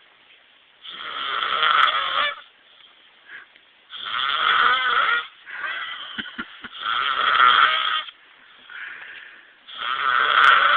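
A man snoring loudly in his sleep: four long snores about three seconds apart, with quieter breaths between them.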